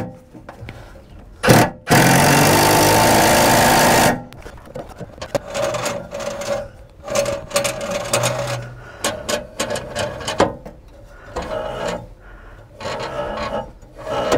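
Cordless impact driver hammering for about two seconds, tightening a lawn tractor's mower blade bolt, after two short blips. Then scattered light metal knocks and scrapes as the blade is turned by hand, catching on a broken piece of the deck cover.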